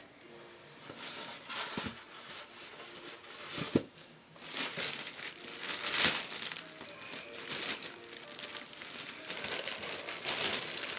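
Thin clear plastic bag crinkling and rustling as hands pull it off a suitcase record player, in irregular handfuls that are loudest about six seconds in, with a light knock a little before four seconds.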